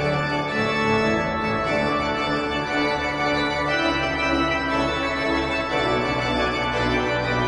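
Background music of slow, sustained organ-like chords, moving to a new chord every two seconds or so.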